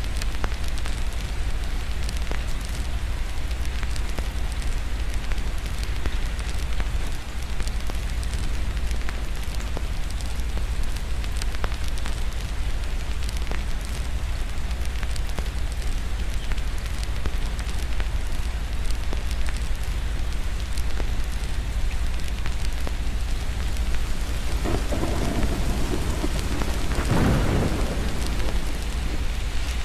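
Steady rain with scattered small crackles, and a rumble of thunder that swells and fades about five seconds from the end.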